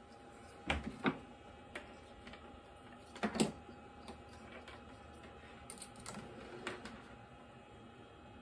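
Scattered light clicks and taps as a metal Z-probe touch plate is handled, set down on the wooden workpiece and its clip fastened to the router bit, the loudest tap about three seconds in. A faint steady hum runs underneath.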